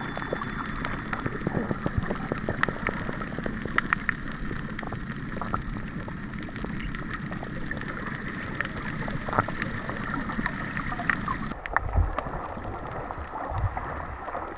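Underwater sound heard through an action camera: a steady, muffled water hiss dotted with many small clicks, turning duller about twelve seconds in.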